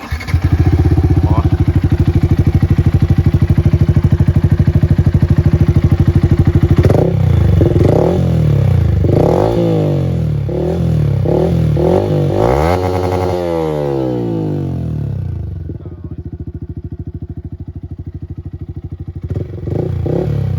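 2024 Yamaha R15's single-cylinder engine through a Jeskap aftermarket exhaust, starting up and idling with a steady pulse. From about seven seconds in it is revved in a string of quick throttle blips, the biggest one near the middle. It then drops back to idle, with a couple more short blips near the end.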